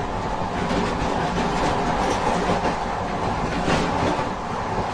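Noise in the gangway between two cars of a moving train: a steady rumble of wheels on the rails, with scattered clanks and rattles from the coupling and the car bodies.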